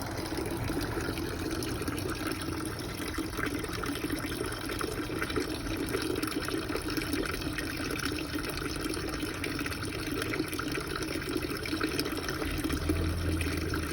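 Water running steadily, a continuous stream splashing and trickling.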